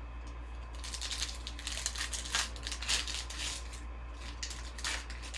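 A trading-card pack's plastic wrapper crinkling and tearing as it is ripped open, in dense irregular crackles starting about a second in, over a steady low hum.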